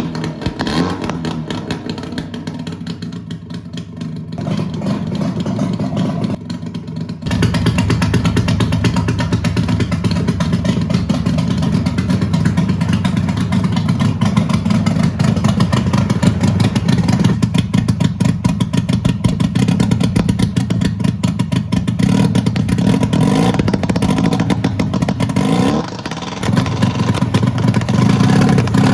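Subaru Sambar's 360cc two-stroke engine running, which the owner takes for flooded. About seven seconds in it is revved up and held at a higher speed, with a brief drop in speed near the end.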